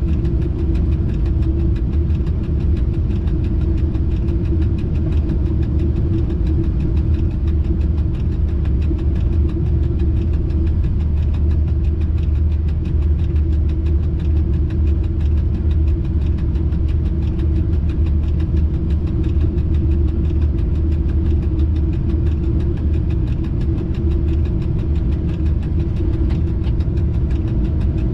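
Freight locomotive cab noise: a steady low rumble with a constant hum that does not change.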